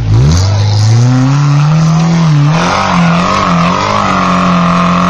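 Small four-wheel-drive's engine revving up hard and held at high revs, the pitch wavering, as it labours up a steep muddy slope.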